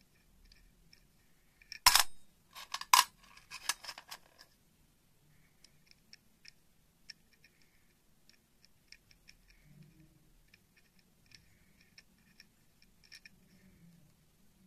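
Small steel bolts and nuts clinking against a stainless steel bowl: one sharp clink about two seconds in, then a quick run of lighter clinks. After that come faint scattered ticks of a nut being turned on a bolt.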